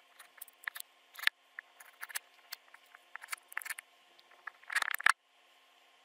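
Grey plastic weatherproof outlet box handled against house wrap on a wall: a run of small irregular clicks, taps and scrapes, with a louder scraping rustle about five seconds in that cuts off suddenly.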